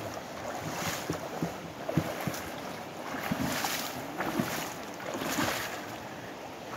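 Feet wading and splashing through shallow river water, with the steady wash of the river and a few sharper splashes, the loudest about two seconds in.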